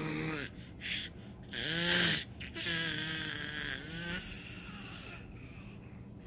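Baby vocalizing: three drawn-out, pitched babbling sounds. The loudest comes about two seconds in and a longer one follows, then it goes quieter.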